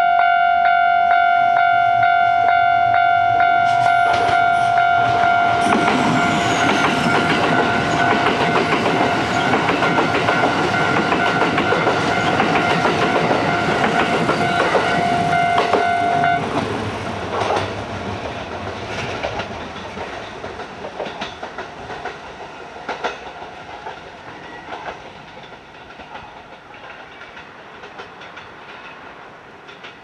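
Kintetsu 5820 series electric train passing at speed, wheels clicking over the rail joints, with a level-crossing warning bell ringing a steady tone. The bell cuts off a little past halfway, and the train noise fades away as the train recedes.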